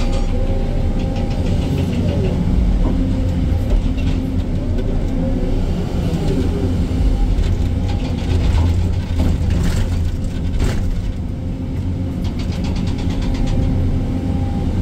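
Excavator diesel engine running hard under load, with scattered sharp knocks and clanks over it as the machine works the stone.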